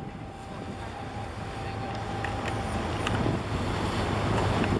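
Low steady rumble of boat engines on the water, growing slightly louder, with wind blowing on the microphone.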